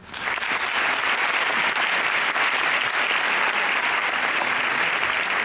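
An audience applauding, breaking out at once and holding steady.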